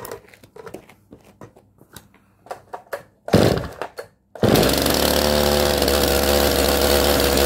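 Stihl MS311 59 cc two-stroke chainsaw being pull-started on half choke. After a few light handling clicks, a loud pull on the starter comes about three seconds in. The engine catches about a second later and keeps running steadily.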